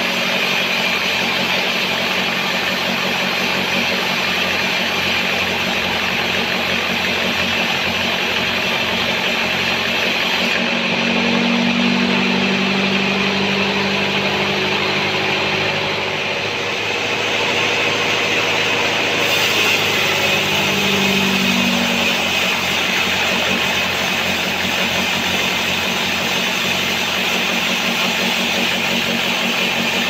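Band sawmill running, its blade sawing lengthwise through a sengon (albasia) log: a loud, steady mechanical drone with the hiss of the cut. The sound shifts in tone about halfway through.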